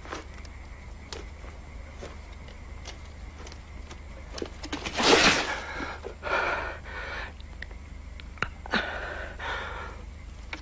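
A man crashes into undergrowth with a loud rustling rush about halfway through, then gasps for breath twice with a strained wheeze as he lies in the bushes. Faint scattered clicks run under it.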